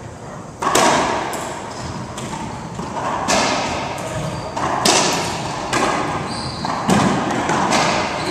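A racquetball rally: sharp cracks of racquets striking the ball and the ball slamming off the court walls, about one a second, each echoing in the enclosed court. Short high squeaks of sneakers on the hardwood floor come between hits.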